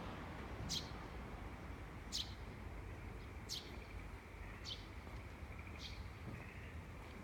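A bird repeating a short, high call that falls in pitch, about once every second and a bit, over a low steady background hum. A faint rapid trill joins in about halfway through.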